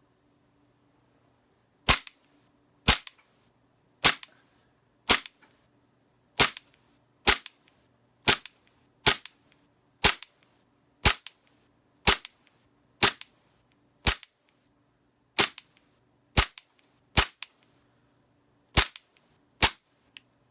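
Tokyo Marui Glock 19 gas-blowback airsoft pistol fired semi-automatically, about eighteen sharp shots at roughly one a second. Each shot is followed by a quieter click as the slide cycles. There is a short pause before the last two shots.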